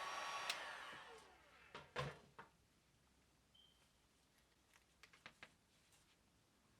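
Heat gun blowing, then switched off about half a second in, its fan winding down over the next second. After that come a few light clicks and taps of small tools on the work surface.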